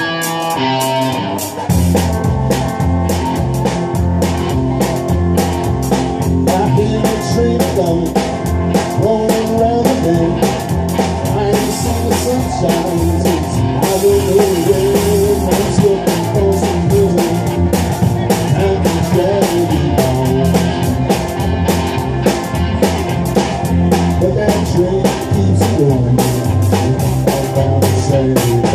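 Classic rock band playing live: electric guitar, bass guitar and drum kit. A chord rings out at the start and the full band with a steady drum beat comes in about two seconds in.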